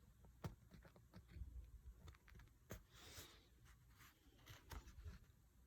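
Near silence with a few faint clicks and a light rustle of the kit being handled, two of the clicks sharper, about half a second and close to three seconds in.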